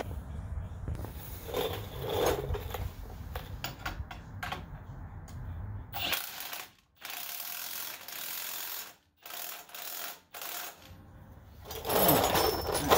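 Hand ratchet wrench clicking in quick strokes while nuts are run down on the Jeep's suspension. The sound cuts out suddenly a few times, and a louder clatter comes near the end.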